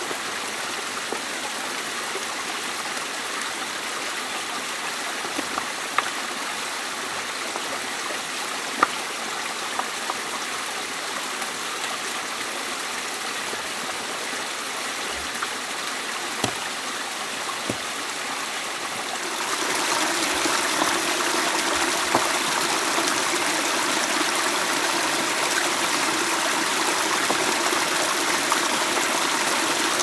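Running water trickling and splashing steadily, louder from about twenty seconds in, with a few light clicks.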